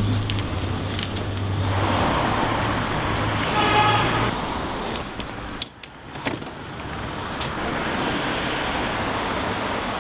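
Road traffic noise from cars on a town street, with a low engine hum in the first four seconds and a brief high tone just before the hum stops.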